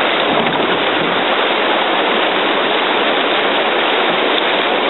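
Steady, loud rush of white water from a Grade 2 river rapid, heard from an open canoe running through it.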